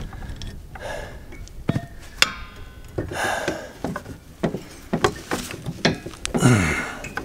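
Steel clinks, knocks and scrapes as a floor jack handle bar levers a new hydraulic jack return spring onto its hook and bracket under an RV, with a short metallic ring about two seconds in. Strained breaths and a grunt from the effort, the grunt near the end.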